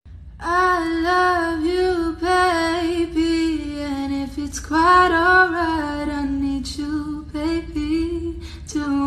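A woman singing solo without accompaniment, holding long notes that slide and waver in pitch, with short breaks between phrases. A faint steady low hum runs underneath.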